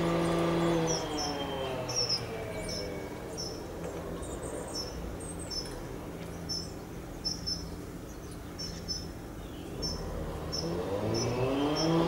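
An engine's steady hum that slides down in pitch and fades over the first two seconds, then comes back rising in pitch near the end as it revs up. Small birds chirp repeatedly throughout.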